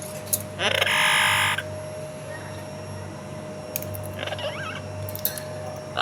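Pet parrot giving one loud, harsh squawk about a second in, then a short burst of chirpy, warbling calls about four seconds in. A faint steady hum runs underneath.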